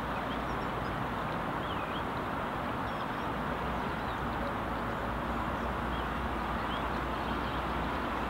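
Steady outdoor background hum with a few faint, short bird chirps.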